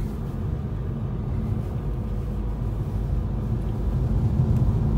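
Road noise inside a moving car: a steady low rumble of engine and tyres, a little louder near the end.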